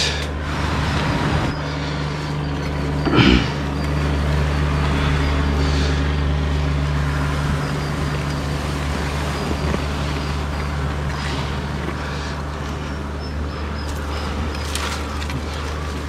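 Swarm of honey bees buzzing in a steady hum around the smoked comb, with a single knock about three seconds in.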